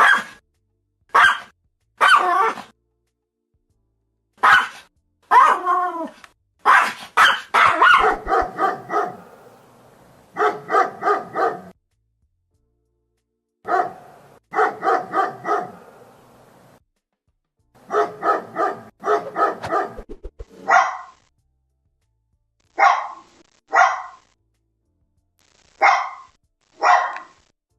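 Dog barking in separate bursts with silent gaps: single loud barks in the first few seconds, then fast runs of several barks in a row, and spaced single barks again near the end.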